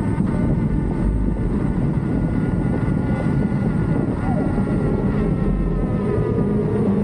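Steady wind buffeting and road rush on an action camera's microphone while riding an electric unicycle, with a faint whine that drifts slightly in pitch.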